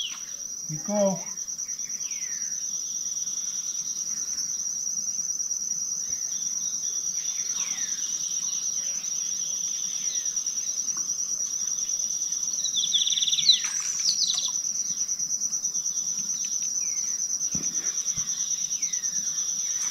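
Insects trilling steadily at a high pitch, with bird calls over them: several short falling chirps, the loudest about 13 to 14 seconds in.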